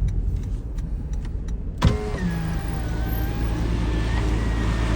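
Car engine idling as a steady low rumble. About two seconds in there is a sharp thump, followed by a faint thin whine lasting about two seconds.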